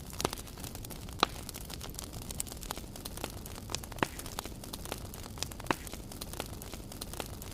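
Fire burning with a steady low rumble and hiss and constant crackling, broken by a few louder pops about a second in, around four seconds in and near six seconds.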